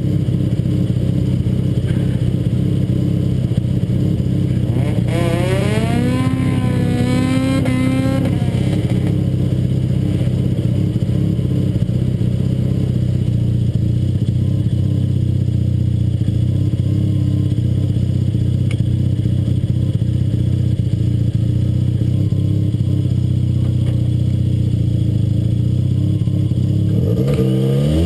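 Car engine running at a steady low rumble close to the microphone as the car rolls at low speed. A rising whine sounds about five seconds in, and the engine revs briefly near the end.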